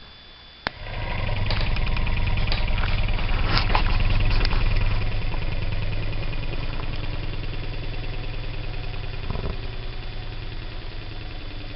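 A small air compressor switches on with a click and its motor and pump run with a rapid, even pulsing, getting gradually a little quieter as it keeps running.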